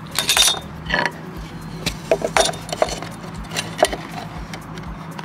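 A fine-toothed hand saw making a last short stroke or two through a strip of wooden trim, then scattered light wooden clicks and knocks as the cut trim pieces are handled and laid against a wooden board.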